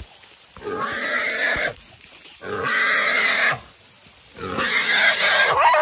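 Wild feral hog squealing while held by a catch dog: three long squeals of about a second each, with short pauses between.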